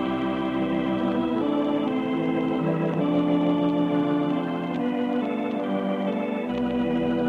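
Organ music playing slow, held chords that change about every second, on an old 1949 radio broadcast recording with a dull, muffled top end.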